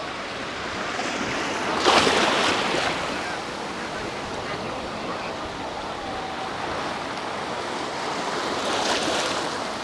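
Sea waves breaking on a beach, with two louder breakers, one about two seconds in and one near the end, over steady wind on the microphone.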